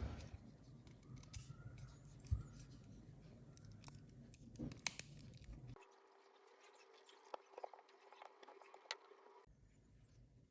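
Faint, sparse clicks and taps of small plastic phone parts being handled by hand.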